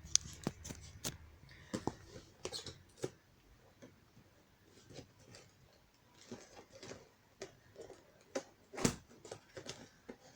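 Light handling noises: irregular soft clicks and taps with faint rustling, a few sharper knocks near the start and one louder one near the end.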